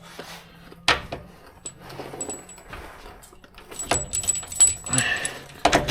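Metal clinks and rattles of a pry bar working a suspension link bolt into place: one sharp clink about a second in, then a quick run of rattling clinks near the end.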